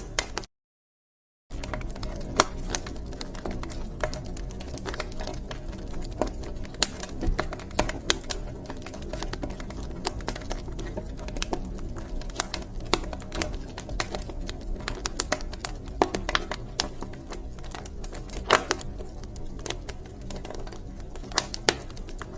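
Wood fire crackling in a fireplace: irregular sharp pops and snaps of varying loudness over a steady low rumble. The sound cuts out completely for about a second shortly after the start.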